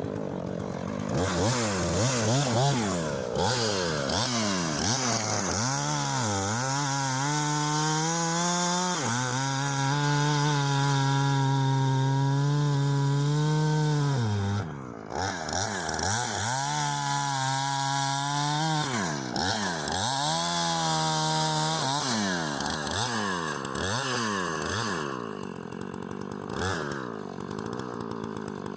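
Husqvarna Rancher two-stroke chainsaw revving up and down again and again, held steady at full throttle for several seconds twice in the middle as the chain cuts through an ash log.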